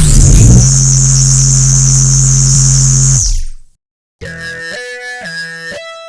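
A loud cartoon sound effect: a sudden downward sweep into a steady low drone with hiss, held for about three seconds and then fading out. After a short gap, a bouncy electronic tune with a repeating plucked melody starts.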